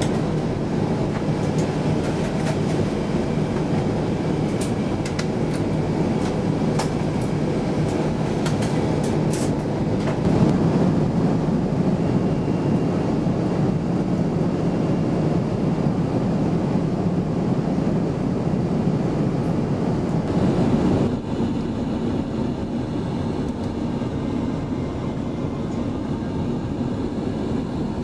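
Steady in-flight cabin noise of an Airbus A350-900: a dense rumble of airflow and engines. A few light clicks come in the first ten seconds. About three-quarters of the way through, the noise drops slightly and changes character.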